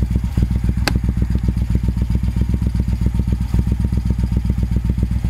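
1974 Moto Guzzi 850 Eldorado's air-cooled 90° V-twin idling steadily through Mistral stainless slash-cut slip-on mufflers, with an even beat of about eight or nine exhaust pulses a second. There is a single sharp click about a second in.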